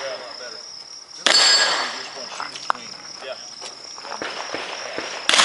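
Two shots from a Smith & Wesson 610 revolver, one about a second in and one near the end, each with a short echo trailing off. Between them, quieter scuffs and clicks come from the shooter moving between positions, over a steady high buzz of insects.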